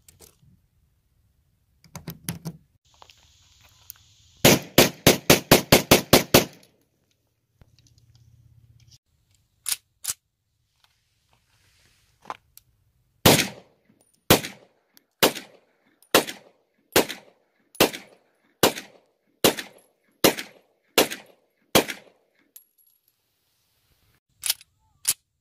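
Grand Power X-Calibur 9 mm pistol being fired: a rapid string of about a dozen shots, then, after a pause and two single shots, a steady string of about eleven shots roughly one a second. A couple of light metallic clicks of gun handling come near the end.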